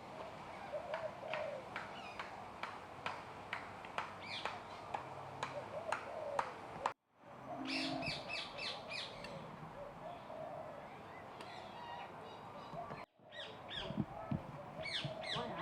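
Birds in a free-flight aviary calling, with short sharp chirps and clicks throughout. About halfway through comes a quick run of about six loud, harsh calls. The sound drops out briefly twice, at edit cuts.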